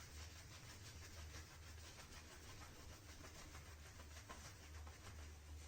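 Faint, quick brushing strokes of a wet shaving brush working up lather from shaving soap, over a low steady hum.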